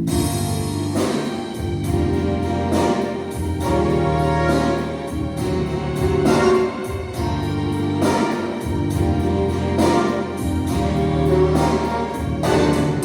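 Instrumental introduction of a backing track: sustained chords with a regular beat, no voice.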